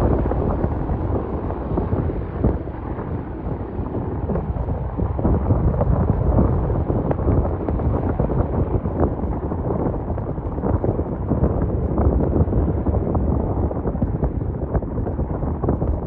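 Wind buffeting the microphone in gusts, over the steady low rumble of a distant Dash-8 turboprop's engines.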